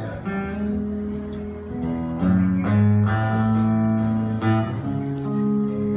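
Live band of acoustic guitars with an electric guitar playing an instrumental passage: chords strummed several times over sustained low notes.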